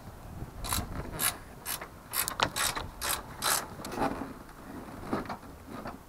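Ratchet spanner clicking in a run of short strokes, about two a second, louder in the first half and softer towards the end, as a nut at a strut-brace mounting on the front strut top is turned.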